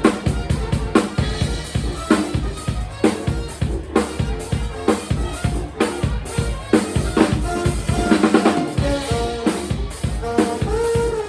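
A live band playing, its drum kit keeping a steady beat with kick, snare and rimshots under pitched instrument parts.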